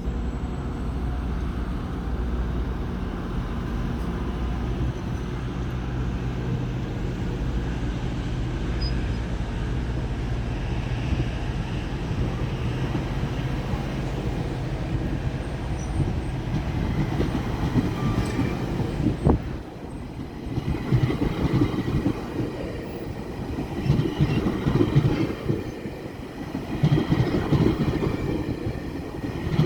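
GO Transit MP40PH-3C diesel locomotive idling steadily with a low hum while its bilevel train stands at the platform. About two-thirds of the way through there is a sharp click. The train then pulls away, with louder, uneven engine and wheel noise that comes in surges.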